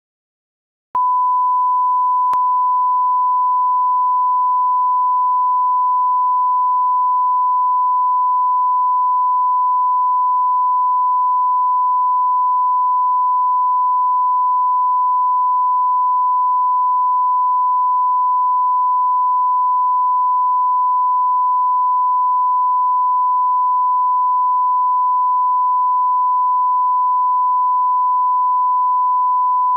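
A continuous, steady test tone at one pure pitch, starting about a second in after silence: a line-up reference tone at the head of a broadcast recording.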